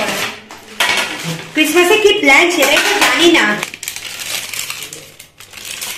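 Baking paper rustling and a container clattering as the paper is peeled back from a freshly baked cake, with a voice speaking briefly in the middle.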